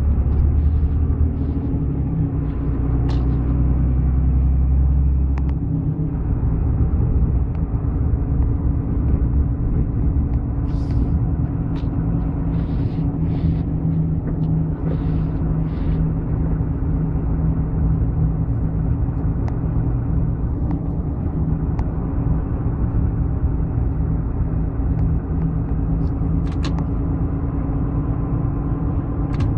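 A vehicle's engine running steadily with low road rumble; its pitch shifts about six seconds in.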